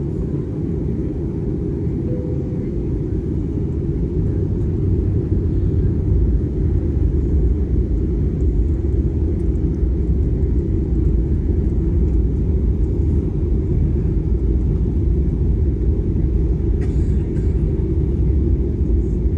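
Airbus A320 aircraft noise heard from inside the cabin: a steady low rumble of the engines and airflow, growing louder about five seconds in and then holding.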